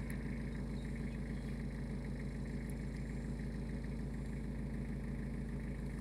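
A vehicle engine idling steadily, an even low hum that does not change.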